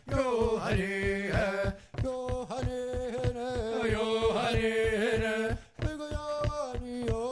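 Background music: chanted singing over a steady, fast drum beat.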